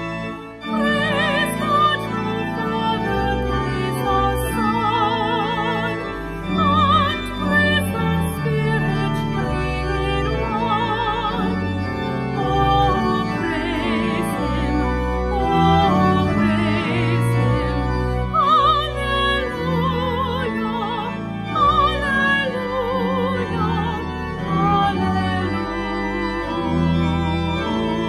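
Background music: a singing voice with wide vibrato over sustained organ chords.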